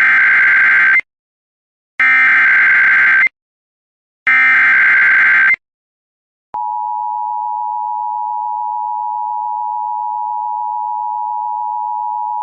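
Emergency Alert System SAME header: three identical bursts of warbling digital data, each a little over a second long with a second's silence between. About six and a half seconds in, the steady two-tone EAS attention signal (853 and 960 Hz) starts and holds. Together they open a broadcast National Weather Service tornado warning.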